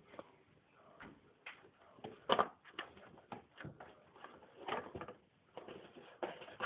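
A cardboard box scraping and rustling in short irregular strokes as a cat pushes and moves with it, with louder scrapes a little over two seconds in and again near five seconds.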